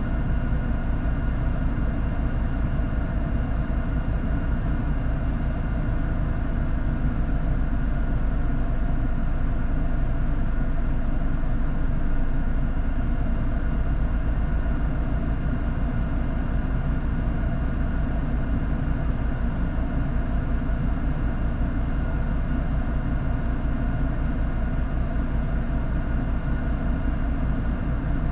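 A 4x4 vehicle's engine running steadily while driving, a low rumble that holds an even level throughout.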